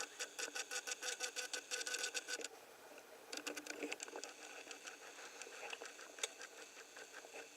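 Camcorder's zoom lens motor running, heard through the camera's own microphone as a faint rapid ticking, about ten ticks a second, for about two and a half seconds, then a second short run after a brief pause.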